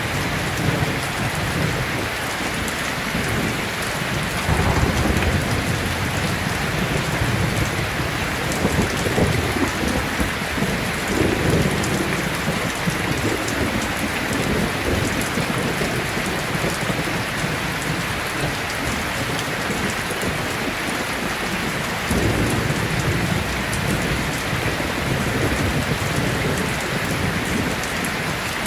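Heavy rain falling steadily, with low rolls of thunder rumbling under it, about five seconds in, again around ten seconds, and from about twenty-two seconds.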